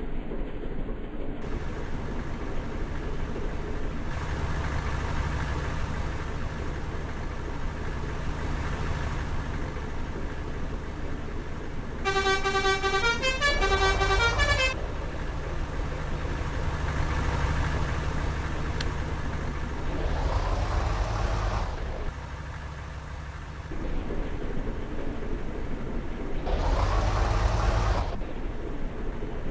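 Bus 'telolet' musical horn playing a short tune of stepping multi-tone notes for about two and a half seconds, about twelve seconds in. Heavy vehicles run past with engine rumble and rising and falling road noise before and after it.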